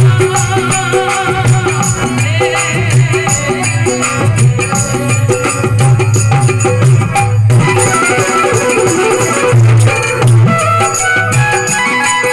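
Instrumental passage of a folk devotional bhajan: a hand drum and fast rattling percussion under a steady melody line, with a brief break about seven seconds in.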